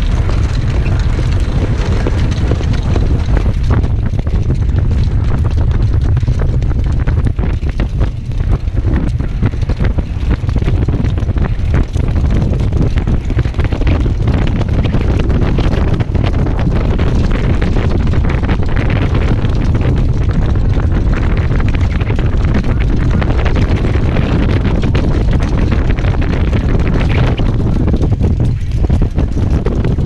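Heavy wind noise on the microphone of a camera riding on a harness-racing sulky moving at speed behind the horse: a loud, steady low rumble.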